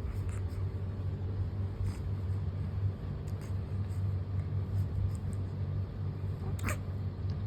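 A steady low hum, with one short sound near the end.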